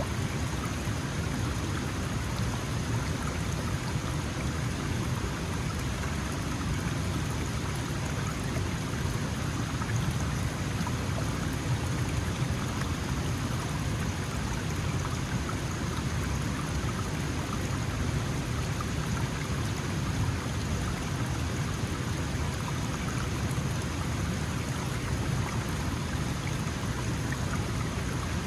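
Small mountain stream flowing, a steady rush and babble of water with a low rumble beneath.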